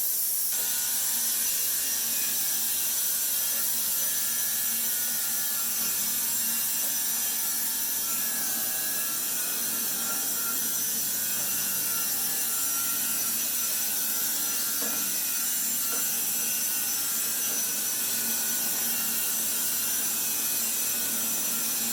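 Sawmill power saw cutting through timber with a steady, high-pitched hissing rasp and no pauses.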